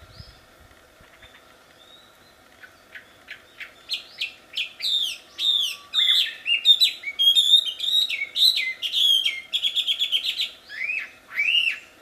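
Chinese hwamei (wambi) singing a loud, varied song of slurred whistles. It starts with scattered notes about two and a half seconds in, then runs into fast trills and repeated rising-and-falling phrases.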